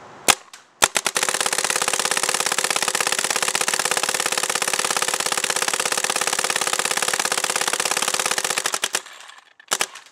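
SL74 electronic paintball marker firing in uncapped ramping mode: two single shots, then a very fast, even string of shots lasting about eight seconds, then a few last single shots near the end. The paint feeds cleanly with no barrel breaks.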